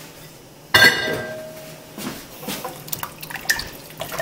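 A sharp clink that rings briefly about a second in, then a wooden spoon stirring thin stock and vegetables in a stainless steel pot: liquid sloshing and dripping with small knocks.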